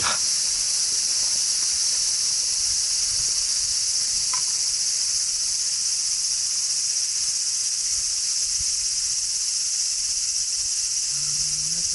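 Steady, high-pitched chorus of summer insects shrilling without a break.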